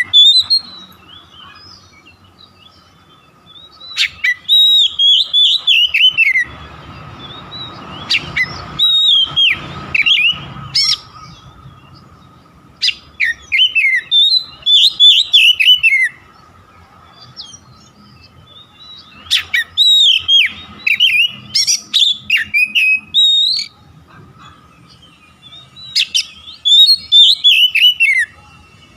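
Oriental magpie-robin singing loud bursts of quick, falling whistled and harsh notes, five phrases with pauses of a couple of seconds between them. A faint steady tone hums underneath.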